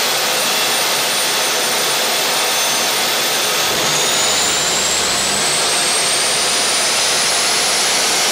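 Ivchenko AI-25 turbofan starting up: a steady rushing jet noise with a high whine that begins climbing in pitch about four seconds in as the engine spools up. The start is spitting flame out of the exhaust.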